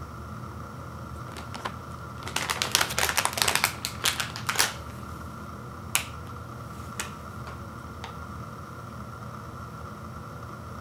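Crinkly plastic wrapper of a family-size Oreo Thins cookie package being handled. A dense run of crackles lasts about two seconds, followed by a few single crackles.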